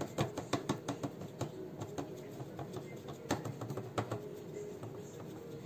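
Light, irregular clicks and taps of a small paintbrush dabbing liquid powder paint into the crevices of a cast decorative frame, several a second.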